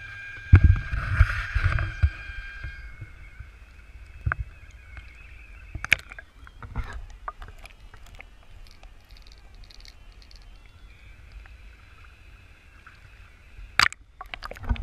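Water sloshing and thumping around a camera as it goes under the surface, then a low steady underwater rumble heard through the submerged housing. Scattered sharp clicks run through it, with two loud ones near the end.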